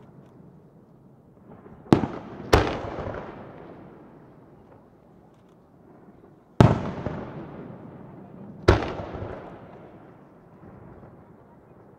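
Aerial firework shells bursting: four sharp bangs, two close together about two seconds in, one a little past the middle and another about two seconds after it. Each bang trails off in a long echo that fades over a second or two.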